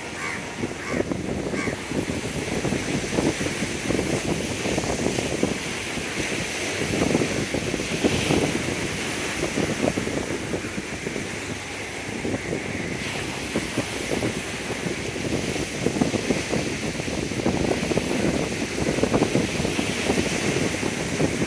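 Sea breeze blowing on the microphone in uneven gusts, over waves breaking on a rocky shore.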